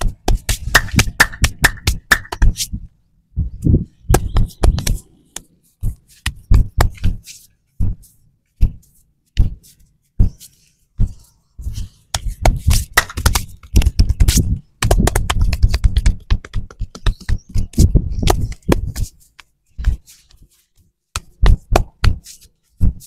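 Hands rhythmically slapping and tapping on a person's back and shoulders in a percussive massage, in quick runs of strikes with short pauses between them.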